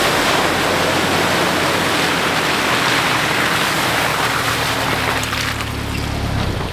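Steady, loud rushing water, an even wash of noise, with a low hum growing under it from about five seconds in.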